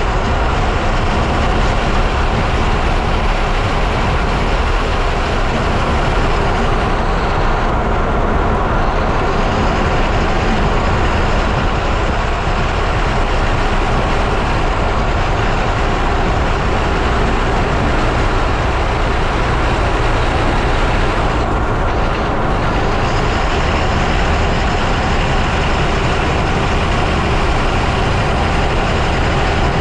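Loud, steady roar of a lorry on the move, heard from a camera bolted under the chassis beside the front wheel: tyre and road noise mixed with the rumble of the running gear. The hiss in the top end dips briefly twice.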